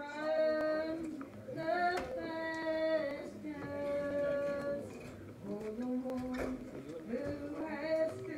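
A woman singing solo in slow, held notes of about a second each, sliding up into some of them.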